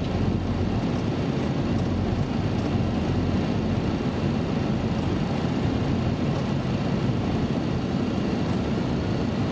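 Boeing 737 cockpit noise on approach: a steady, even low rumble of airflow and engines.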